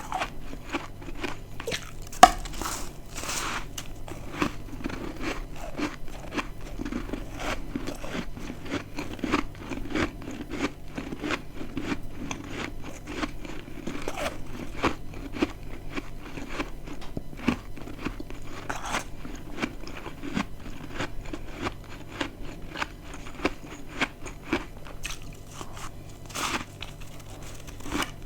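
Close-up biting and chewing of dry, crispy freezer-frost chunks: dense crackling crunches throughout, broken by a few louder bites, the sharpest about two seconds in.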